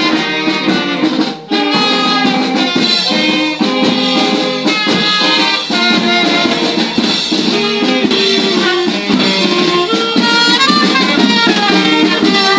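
Street marching band playing a tune on saxophones and other brass over a drum beat, a little louder near the end.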